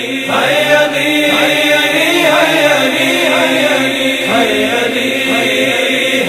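Noha intro: a male voice chanting a drawn-out melody without clear words over a steady sustained drone.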